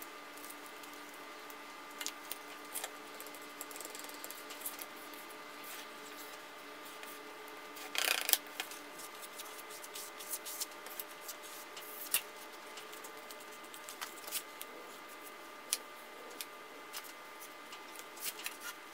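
Plastic spreader scraping and smearing polyester finishing putty over a primed cast-iron Bridgeport mill ram: soft, irregular scrapes and squishes, the loudest about eight seconds in, over a steady hum.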